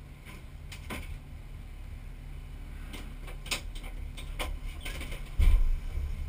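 Pontiac 455 V8 in a Buick wagon idling, a low rumble heard from inside the cabin, with scattered light clicks and rattles. A short, louder low thump comes about five seconds in.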